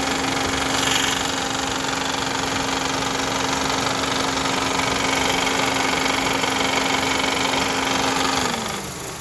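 2010 Honda Civic 1.8-litre four-cylinder engine idling with a loud, steady rattle, which the owner puts down to a broken serpentine belt tensioner pulley. Near the end a steady hum drops in pitch and the noise eases slightly.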